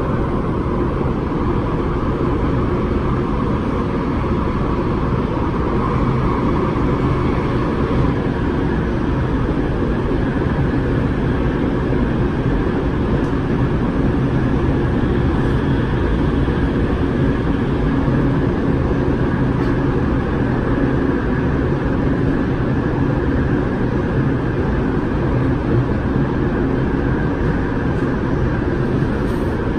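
Cabin noise inside an MTR West Rail Line electric train running: a steady rumble and hum of the carriage. A higher hum steps up in pitch about eight seconds in.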